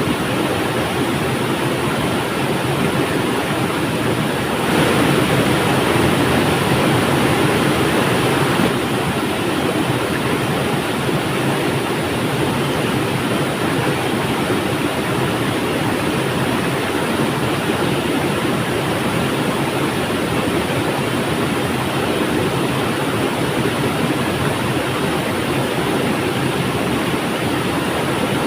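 River water flowing with a steady rushing sound, swelling a little louder for a few seconds about five seconds in.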